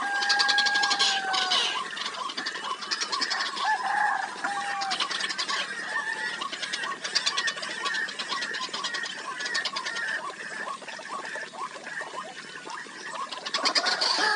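Birds calling: a clear whistled note held for about a second and a half at the start, a few short whistles about four seconds in, and repeated high, rapid rattling trills coming in bursts.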